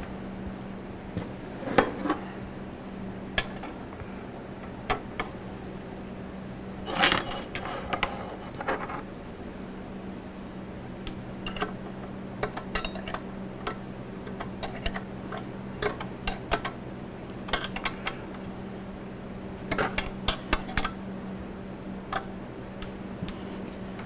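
Open-end wrench clicking and clinking against the nut and metal parts of a DeWalt 788 scroll saw's motor crank and connecting rod as the screw there is turned. The light metallic clicks are scattered, with small clusters about seven seconds in and again near twenty seconds in, over a steady low hum.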